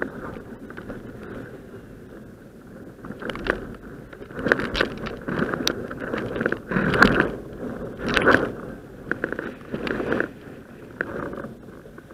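Water splashing and slapping against a windsurf board in irregular noisy surges, loudest a little past the middle, picked up by an action camera mounted on the mast.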